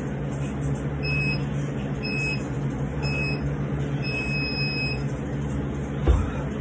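Workout interval timer counting down: three short high beeps a second apart, then one long beep marking the start of a 30-second work interval. A low thump follows near the end as the toes-to-bar begin.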